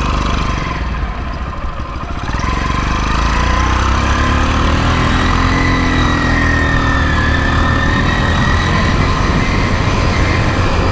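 Motoped motorized bicycle's 49cc engine idling, then revving up about two and a half seconds in as the bike pulls away and accelerates. Its pitch rises and then eases back.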